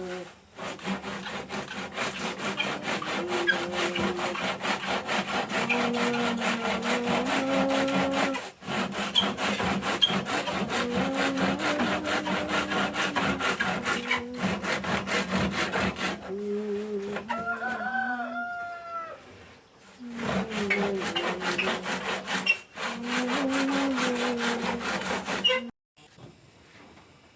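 Rapid, even strokes of a hand tool scraping or sawing wood, with a pitched sound sliding up and down over them. Both pause briefly partway through, start again, and stop abruptly near the end.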